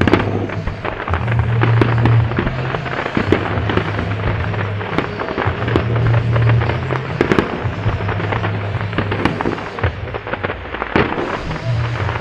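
Display fireworks going off in rapid succession, a dense run of sharp pops and bangs from low mines and small shells fired from barges on the water. Music with a steady, changing bass line plays under the bursts.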